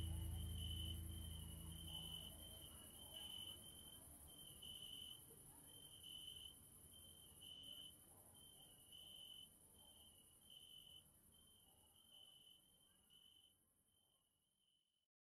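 The end of a song fading out. Low music dies away over the first couple of seconds, leaving a faint, high, cricket-like chirp that repeats a little faster than once a second over a thin high hiss. Everything fades to silence near the end.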